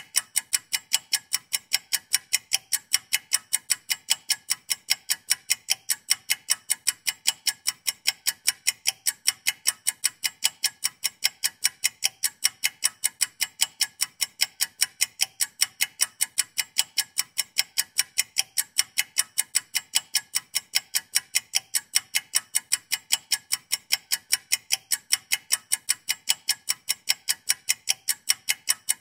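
Clock-ticking sound effect running as a countdown timer: fast, evenly spaced, sharp ticks, several a second, at an unchanging pace.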